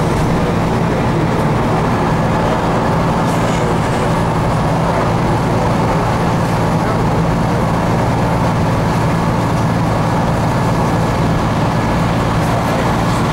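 Steady drone of a bus engine with tyre and road noise, heard from inside the passenger cabin while travelling at speed on a dual carriageway.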